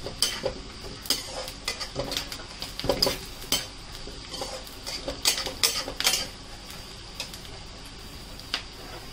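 Steel slotted spoon scraping and clinking against a metal kadhai as chopped onions are stirred while frying in oil, over a steady sizzle. The stirring stops about six seconds in, followed by one more clink near the end.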